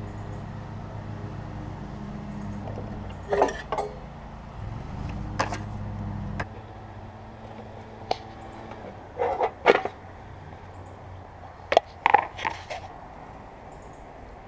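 Scattered metallic clicks and clinks of hand tools and parts being handled while a lawnmower's recoil starter is taken apart. Under them runs a steady low hum that stops about six and a half seconds in.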